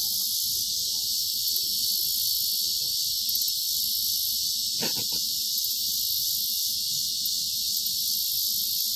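Steady, high-pitched chorus of insects droning without a break, with a brief voice sound about five seconds in.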